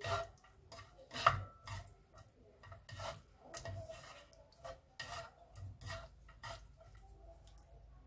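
Wooden spoon and chopsticks scraping and knocking against a frying pan while tossing shredded seasoned squid in a sticky sauce, a stroke about every half second. The loudest knock comes about a second in, and the strokes die away in the last second or so.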